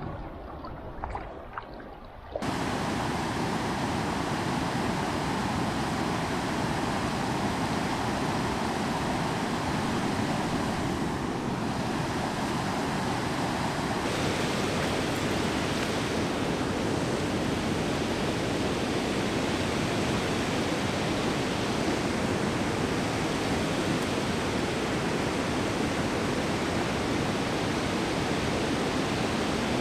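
River rapids: white water rushing in a steady, even wash that starts suddenly about two seconds in.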